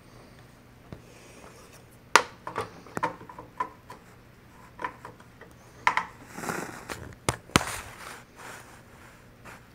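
Handling noise: scattered light clicks and taps, with a brief rustle about six and a half seconds in, over a faint steady low hum.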